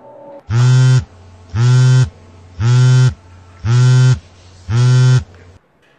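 Mobile phone ringing: five identical low buzzing electronic tones, each about half a second long, about one a second.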